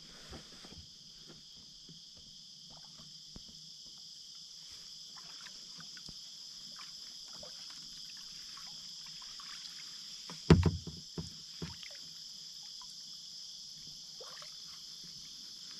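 Kayak drifting and paddling on calm water: small drips and splashes from the paddle, a steady high insect chorus from the riverbank, and a single knock about ten and a half seconds in.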